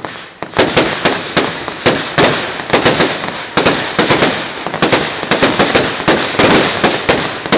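Fireworks display in full flow: a rapid, dense barrage of shell bursts and crackling reports, several bangs a second overlapping with one another.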